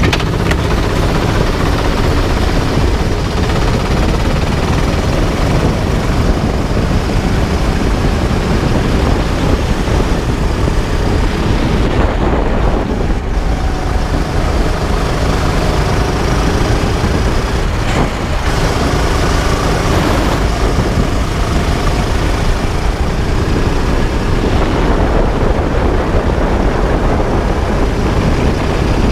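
Rental kart engine running on track, heard from onboard over a heavy low rumble; its note rises and falls with throttle, easing briefly about 12 and 18 seconds in.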